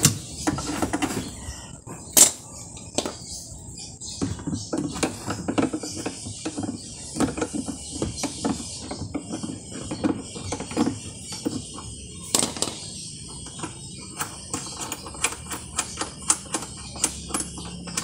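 Irregular clicks, taps and rattles of hand tools on the motor bracket and belt of a top-load washing machine as its burnt-out motor is unbolted and taken out, with two sharper knocks about two seconds in and about twelve seconds in.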